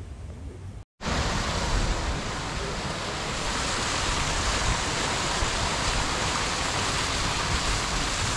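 Waterfall pouring into a pool, a steady splashing rush that starts abruptly about a second in.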